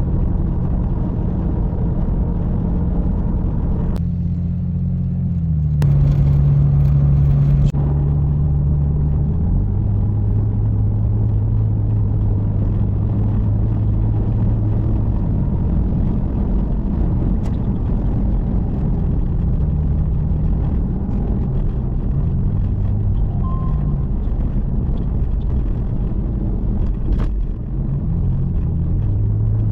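A car running on the road: steady engine and road noise, with the engine's pitch shifting a few times in the first ten seconds, then holding steady.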